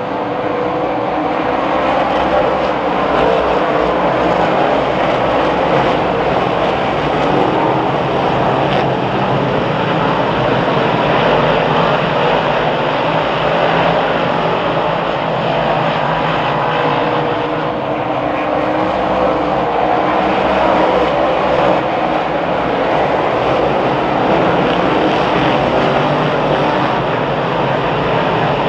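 A field of 358 dirt modified race cars with small-block V8 engines running on the track, a loud continuous blend of many engines with a slight dip about two-thirds of the way through.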